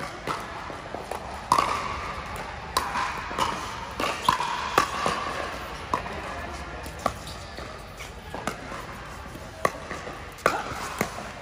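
Pickleball rally: hard paddles striking a plastic pickleball and the ball bouncing on the court, a string of sharp pops at an uneven pace, with the loudest hits about a second and a half in and again near four and a half and nine and a half seconds.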